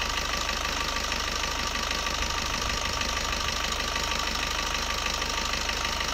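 Maruti Baleno's 1.3-litre diesel engine idling steadily during a carbon-cleaning injection treatment.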